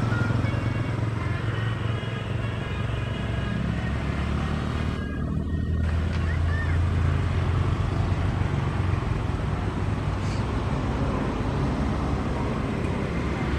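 Roadside traffic noise: a heavy vehicle's engine running steadily, with other traffic passing.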